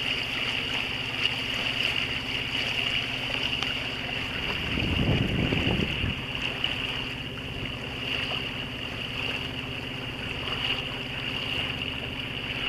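Old Yanmar inboard diesel of a sailboat running steadily, the boat motoring with water rushing past the hull. A brief louder rush of noise comes about five seconds in.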